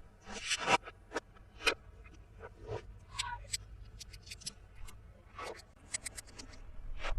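Small plastic toy pieces being handled: a brief rustling scrape under a second in, then a string of light clicks and taps.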